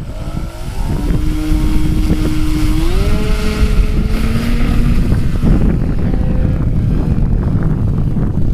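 Motor of a model Cessna 182 airplane running up. Its pitch rises during the first second, holds steady, steps higher about three seconds in, then fades into the wind. Heavy wind noise on the microphone rumbles underneath throughout.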